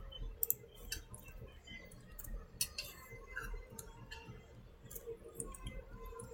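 A computer mouse clicking a few times, with sharp clicks about half a second in and near the middle. A steady low hum sits underneath.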